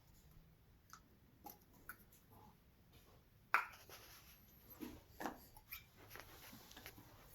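Scattered light clicks and knocks of small telescope parts, such as eyepieces, being picked up and handled, with one sharper knock about halfway through.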